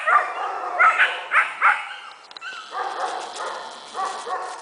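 Young dog barking in short, high-pitched yaps: a quick series of about five in the first two seconds, then a weaker, rougher run of yaps near the end.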